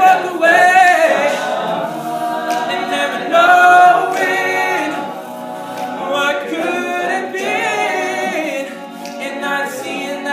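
Male a cappella group singing a slow ballad: a lead voice carrying the melody over sustained close harmonies from the other singers, with no instruments.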